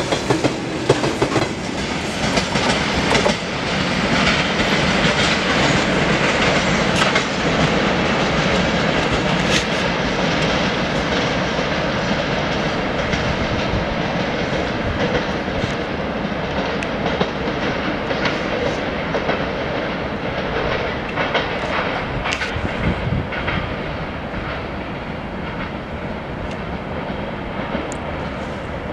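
Freight train of tank wagons rolling past, its wheels clattering over the rail joints, then running away down the line and growing quieter about two-thirds of the way through.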